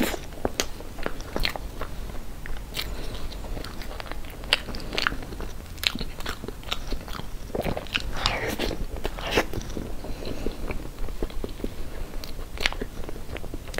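Close-miked eating of soft cream cake: wet chewing and mouth sounds with many irregular sharp clicks.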